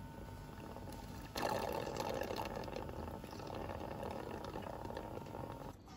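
Stingless bee honey being sucked out of the hive's honey pots through a plastic suction tube: a steady wet slurping that starts about a second and a half in and stops just before the end, over a faint steady hum.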